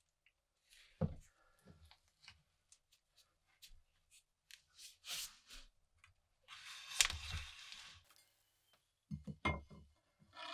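Bayonet blade cutting through a baked pie's flaky crust and lifting a slice onto a plate: scattered crust crackles and small clicks, a sharp knock about a second in, a longer crackly scraping stretch a little past the middle, and a few soft knocks near the end.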